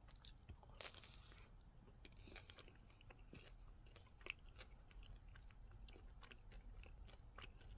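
Faint chewing of a bite of chocolate-coated ice cream cone, with a few soft crunches, the loudest a little under a second in.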